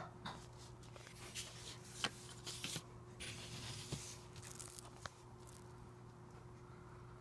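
Faint handling noise: scattered light clicks and soft scraping and rustling, busiest in the first half, over a steady low electrical hum.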